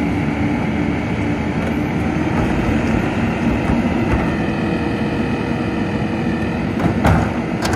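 Rear-loader garbage truck's engine running steadily while its hydraulic cart tipper lifts and dumps a wheeled trash cart into the hopper, with a higher whine in the middle. Two sharp bangs near the end as the cart knocks against the tipper.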